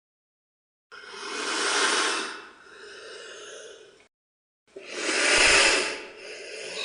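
An animal making two long, breathy hisses, each swelling up and fading away over two to three seconds, with a short silence between them.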